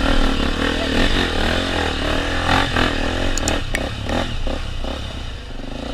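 Honda XR 250 Tornado's single-cylinder engine revving up and down on a rough off-road trail, with clattering knocks from the bike about midway.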